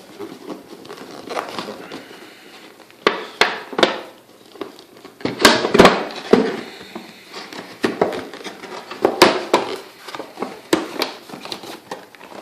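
A cardboard retail box being handled and pried at one-handed to get it open: irregular crackling and rustling of the packaging with several sharp snaps and clicks, the loudest in the middle.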